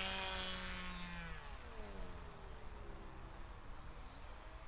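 Electric paramotor (Peer XL ProUltralight drive) motor and propeller running, a buzzing hum that fades over the first couple of seconds. Its pitch dips about a second in and climbs back up toward the end.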